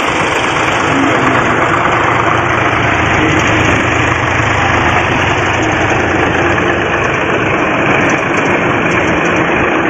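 Steady, loud engine running noise with no change in pitch or speed, laid over the picture of string-pulled plastic toys that have no motors of their own.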